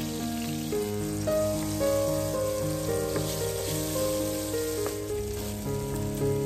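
Oil sizzling in a frying pan as fish fillets, then diced meat, fry, under background music whose notes step from one to the next every half second or so.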